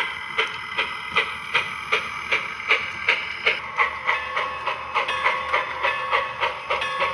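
Sound-equipped HO scale model steam locomotive chuffing at a steady pace, about two and a half chuffs a second. A steady tone joins the chuffing about four seconds in.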